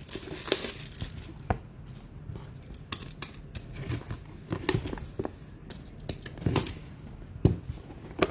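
Trading card packaging being torn open and crinkled by hand, with many small clicks and taps of handling scattered throughout.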